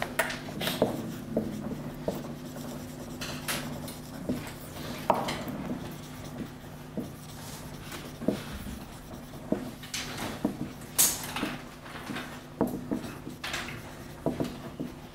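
Marker writing on a whiteboard: an irregular run of short strokes and taps as a line of words is written, over a steady low electrical hum.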